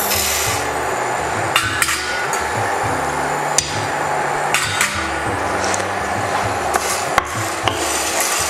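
Whole black peppercorns tipped into a nonstick frying pan of dry whole spices, with scattered sharp clicks and knocks against the pan. Near the end a wooden spatula starts stirring the spices for dry-roasting.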